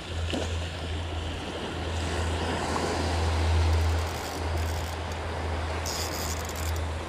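Wind buffeting the microphone with a steady low rumble, stronger around the middle, over small waves washing up on a sandy beach.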